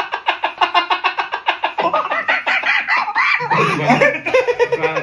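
A sound effect played back: a fast, rapid-fire cackling chatter of about ten pulses a second, changing about two seconds in to gliding, wavering cries, with a lower voice-like tone joining near the end.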